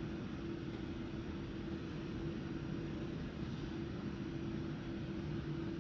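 Steady cabin noise inside a Boeing 787-9 taxiing after landing: an even rumble and hiss from the idling engines and cabin air, with a constant low hum running through it.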